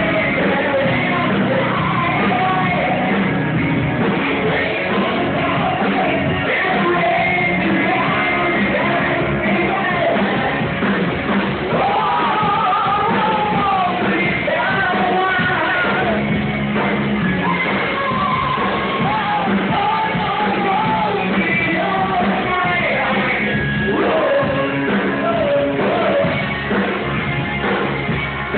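Rock band playing live in a hall, with a singer shouting and yelling the vocals over electric guitar.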